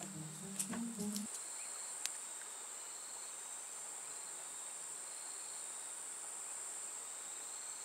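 Steady high-pitched drone of insects. Background music stops about a second in, and there are a couple of sharp clicks.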